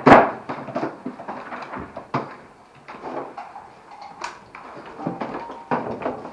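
A loud sharp clack of gear being handled, then a few lighter knocks and clacks spaced a second or two apart.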